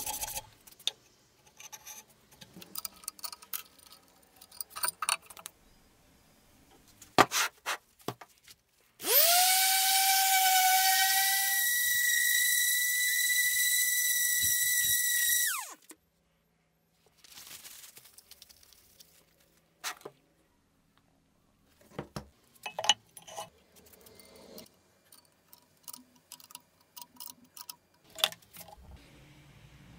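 Random-orbit sander running for about six seconds, a pitched whine that rises as it spins up, jumps higher partway through, holds steady, then cuts off suddenly. Scattered knocks and clicks of metal parts being handled come before and after it.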